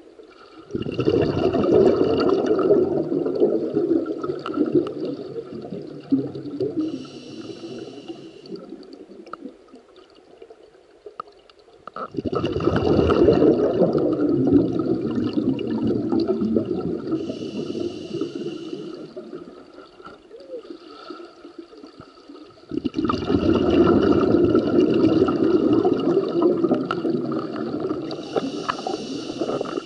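Scuba diver's breathing heard underwater. There are three long exhalations of rumbling bubbles about ten seconds apart, each fading out, with a short hiss of inhalation through the regulator between them.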